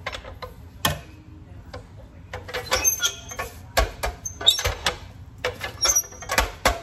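A blue metal tortilla press being handled: a sharp knock about a second in, then clacks and rustling of the plastic sheet as the masa is laid in, flattened and the press's lid is lifted.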